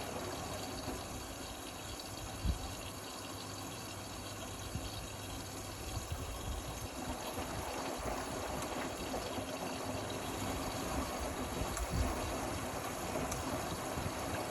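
Indesit Innex XWA 81252 washing machine with water rushing steadily through it, with a couple of soft low knocks.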